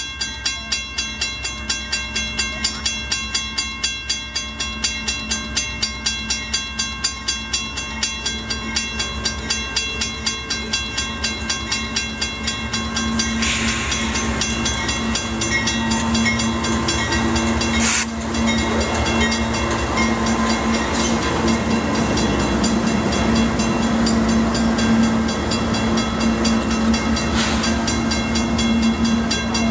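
Grade crossing bell ringing at about two strikes a second as a freight train approaches. About 13 s in, the lead GE AC4400CW diesel locomotive passes close by, and its engine and wheel noise takes over. It is followed by autorack cars rolling and rattling over the track, with a few sharp bangs.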